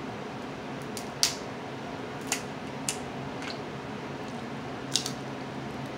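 Snow crab leg shells being cracked and snapped apart by hand: four sharp cracks, the loudest about a second in and another near the end.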